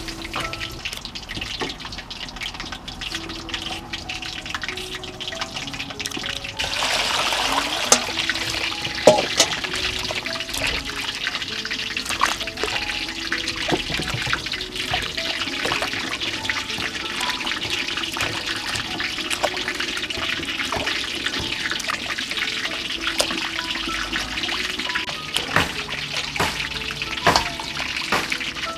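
Water running into a stainless steel bowl and splashing as hands wash vegetables in it, starting about seven seconds in, with small knocks and clinks. Background music plays throughout.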